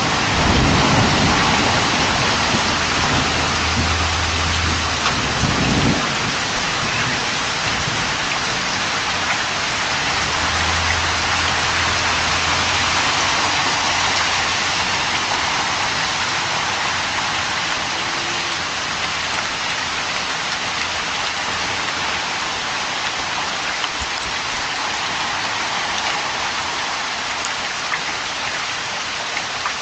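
Heavy rain pouring steadily, picked up by a Ring doorbell camera's microphone. A low rumble of thunder runs through the first few seconds and dies away.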